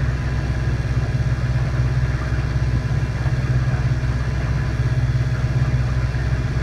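A small boat's outboard motor running steadily at an even speed, with a low hum.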